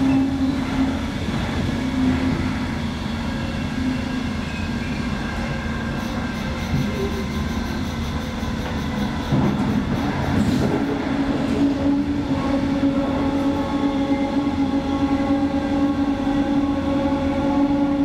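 High-speed rolling noise heard inside a double-deck passenger coach: a steady rumble of the wheels on the rails with a humming tone over it, which fades in the middle and grows stronger again in the last third.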